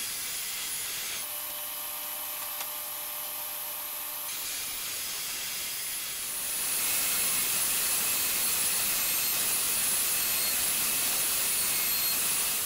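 Table saw running as it rips the edges of a walnut and epoxy resin panel. About six seconds in, a louder router in a router table takes over: a steady rush with a faint high wavering whine as the panel edge is fed past the bit.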